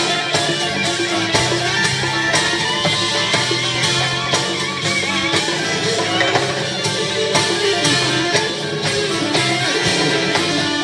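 Live music from a Latin jazz orchestra: a drum kit and percussion keep a steady beat under guitar and other instruments.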